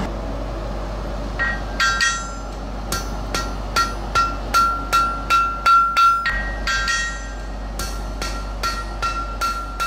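Hand hammer striking hot iron on an anvil in a steady run of blows, about two to three a second, each with a clear metallic ring. The strikes start about a second and a half in and pause briefly about two-thirds of the way through before carrying on.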